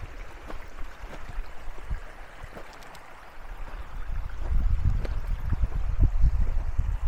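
Shallow creek water flowing steadily, a continuous rushing sound. A low uneven rumble underneath grows heavier in the second half.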